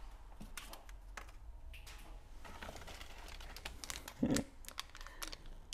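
Faint crinkling and rustling with scattered small clicks, like packaging being handled. There is one short, duller sound about four seconds in.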